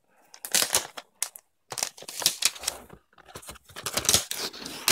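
Plastic packaging crinkling and rustling in irregular bursts of crackle as a new laptop is unwrapped.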